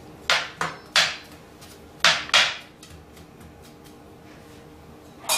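A cooking utensil knocking against a frying pan while stirring sliced potatoes and onion: sharp clatters in small groups, three in the first second, two about two seconds in, and more near the end.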